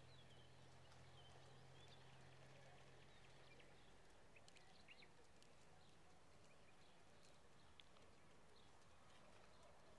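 Near silence: faint outdoor ambience with a low hum that stops about four seconds in, a few faint chirps and occasional soft ticks.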